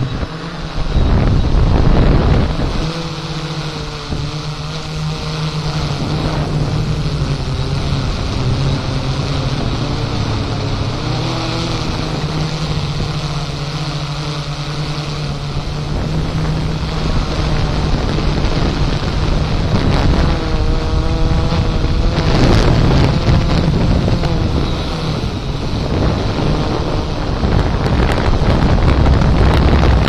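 Strong wind buffeting the microphone in a loud, continuous rush, over the low hum of a quadcopter drone's motors and propellers. The hum's pitch wavers and shifts, most noticeably about twenty seconds in.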